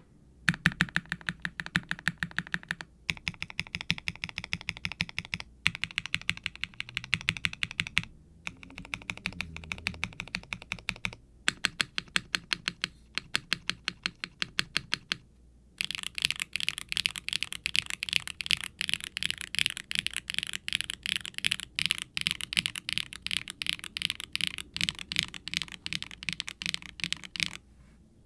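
Typing on a HIBI June mechanical keyboard with HMX Poro linear switches, an FR4 plate and GMK keycaps, with a clacky, bright sound. The typing comes in runs of quick keystrokes with short pauses, and turns faster and more continuous a little past halfway.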